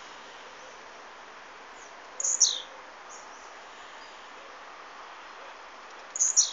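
Blue-black grassquit (tiziu) calling twice, about four seconds apart: each call a short, high note that falls at the end. Steady background noise runs under it.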